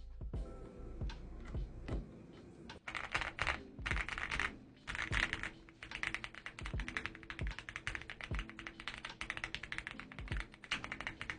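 Typing on a Zoom65 custom mechanical keyboard fitted with lubed and filmed Gateron Black Ink V2 linear switches and Hippo keycaps. Scattered key presses for about three seconds give way to fast, continuous typing in quick flurries.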